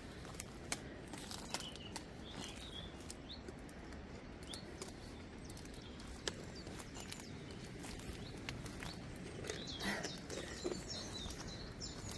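Outdoor ambience with a steady low hiss, birds chirping now and then, and a few scattered light clicks.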